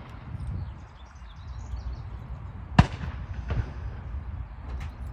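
A single gunshot a little under three seconds in, the loudest sound, followed under a second later by a fainter crack. Underneath there is a steady low rumble and faint high chirps of a small bird.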